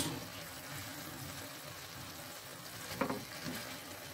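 Chicken simmering in sauce in a frying pan, a faint steady bubbling hiss as the sauce reduces and thickens. A brief louder sound about three seconds in.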